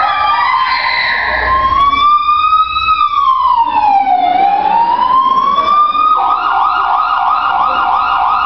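Emergency siren sound effect: a slow wailing tone that rises and falls. About six seconds in it switches to a fast warble, roughly two cycles a second.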